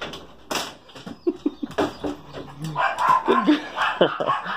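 A Great Pyrenees puppy paws at a patio door's lever handle, giving sharp clicks and knocks from the handle and latch as she opens the door. Short dog whines or yips come in between.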